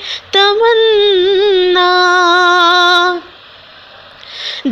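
A woman's voice singing an Urdu naat. She holds one long note with a slight waver for about three seconds, then stops for a short pause before the next phrase.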